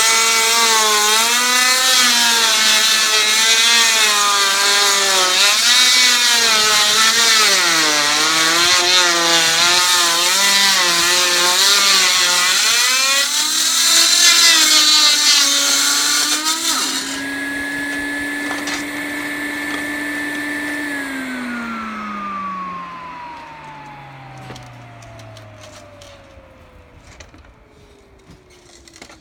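Handheld power saw cutting through roofing material, its motor pitch wavering as the blade loads and unloads. About 17 seconds in the cutting stops, the motor runs free on a steady tone for a few seconds, then is switched off and winds down with a falling pitch.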